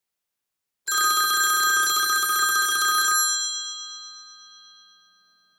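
A phone ringtone in the sound of an old telephone bell: one ring of about two seconds starting about a second in, its ringing then fading away.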